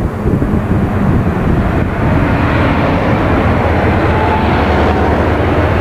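Car driving along a town street, heard from inside the car: steady road and engine rumble with some wind noise, becoming evener about two seconds in.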